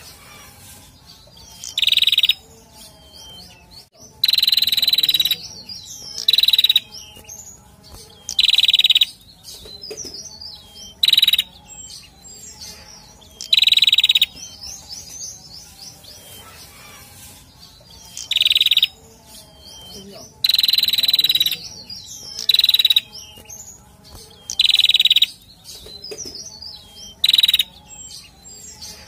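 Male prenjak (tailorbird) song: loud, strident high calls repeated about every two seconds, some brief and some held nearly a second, with fainter buzzy chattering trills between them.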